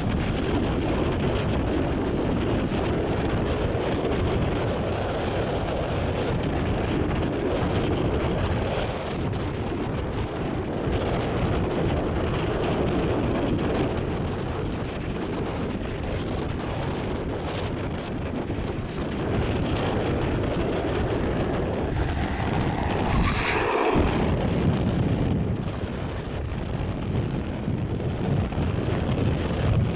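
Wind buffeting the microphone, a steady rumbling noise, with one brief sharper burst a little after two-thirds of the way through.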